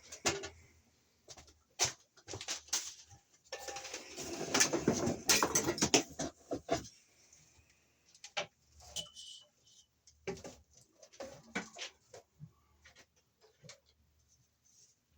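Clicks, taps and rustling of electrical wire and tools being handled at a junction box, with a denser stretch of scraping and rustling in the middle.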